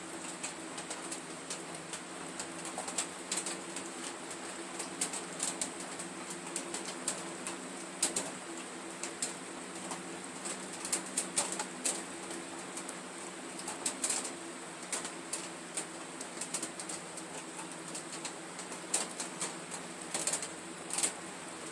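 A thick antimony potassium tartrate and thiocyanate mixture, boiled down to a small volume in a beaker on a burner at full heat, foaming and splattering with irregular sharp pops and crackles. A steady low hum runs underneath.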